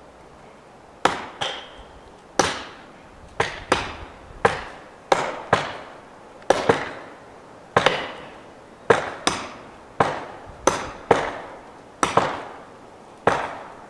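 Faller pounding felling wedges into the back cut of a red fir snag, about twenty sharp ringing strikes, often in quick pairs, starting about a second in.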